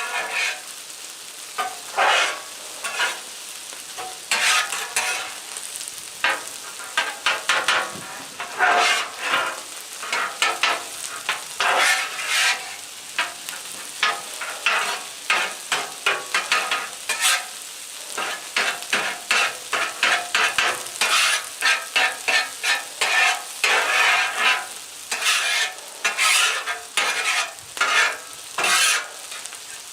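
Metal spatula scraping and chopping scrambled eggs on a hot flat-top griddle in a series of irregular strokes, over a steady sizzle of the eggs frying in butter.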